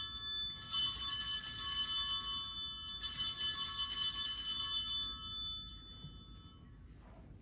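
Altar bells rung twice as the chalice is elevated at the consecration, about a second in and again about three seconds in. Each ring is a bright cluster of high chiming tones that dies away over a couple of seconds.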